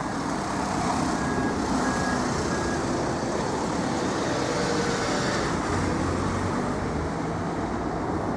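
Street traffic and idling vehicle engines running steadily, with three short, evenly spaced high beeps about a second and a half in.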